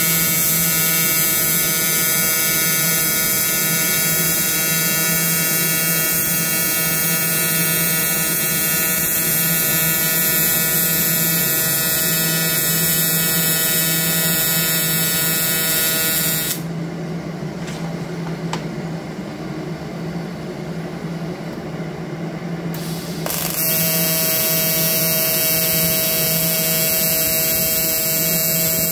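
TIG welding arc from an Everlast Typhoon 230 inverter welder, a steady buzzing hum made of many even tones. The arc stops about 16 seconds in and strikes again some 7 seconds later; in the gap only a quieter background hum remains.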